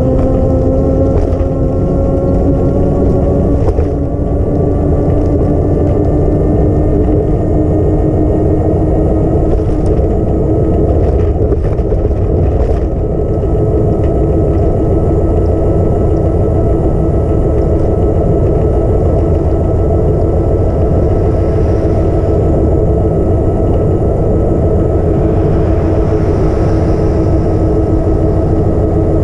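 Engine of a moving road vehicle running steadily under way, its pitch rising slowly over the first ten seconds or so as it gathers speed and then holding level, over continuous road and wind rumble.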